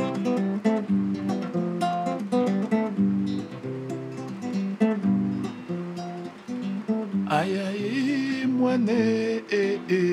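Guitar playing a quick, danceable soukous pattern of plucked notes; about seven seconds in a voice starts singing over it.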